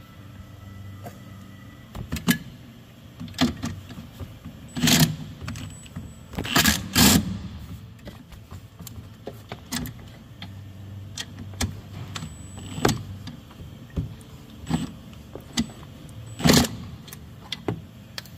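Hand-tool work on a Thermo King condenser fan motor mount: a socket wrench on an extension and scattered metal clicks and knocks against the bracket, with louder, longer rattles about five, seven and sixteen seconds in.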